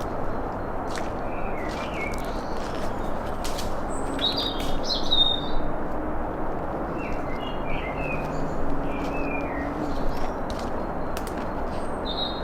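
Small birds chirping and trilling in short, repeated phrases over a steady rushing background noise, with a faint low hum in the middle of the stretch.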